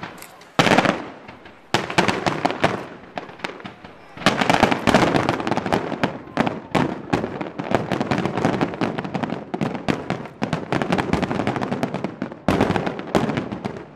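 Aerial fireworks display: loud bangs in the first two seconds, then a dense run of crackling and popping bursts from about four seconds in, and another bang near the end.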